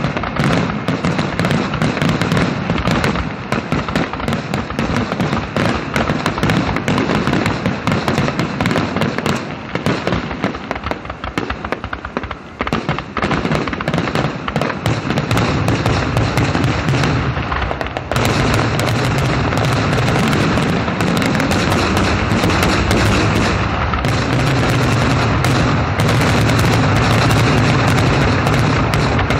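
Fireworks display: aerial shells bursting in a rapid, almost continuous barrage of overlapping booms. It thins briefly about twelve seconds in, then grows denser and louder again from about eighteen seconds.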